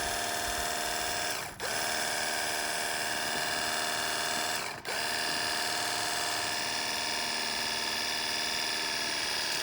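Portable pressure washer's electric pump motor running steadily with a high whine while spraying, drawing water through its suction hose from a bucket. The sound dips briefly twice, about one and a half and five seconds in, then picks straight back up.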